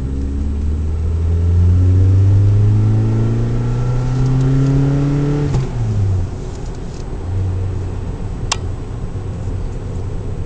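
Saab 9000 engine heard from inside the cabin under acceleration, its pitch climbing steadily for about five seconds. It then drops sharply at a gear change and runs on lower and steadier. Not especially loud inside the car; a single sharp click comes near the end.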